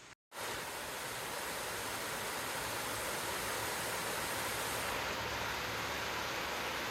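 Waterfall rushing: a steady, even hiss of falling water that begins after a split-second gap at the start.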